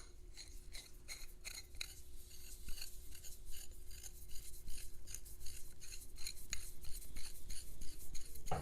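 Sections of a 3D-printer brace tube being screwed together by hand on their threaded joint: a quick, even run of light rasping clicks, several a second, as the threads turn.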